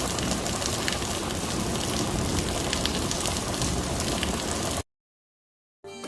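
Heavy rain pouring down steadily, with scattered drips and splashes, cut off abruptly about five seconds in, followed by a second of dead silence.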